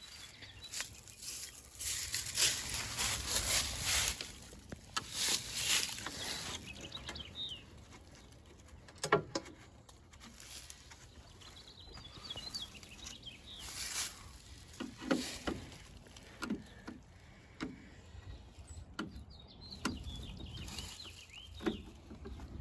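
Rustling and scraping of car floor carpet being pulled and handled, with a few sharp knocks, and birds chirping faintly.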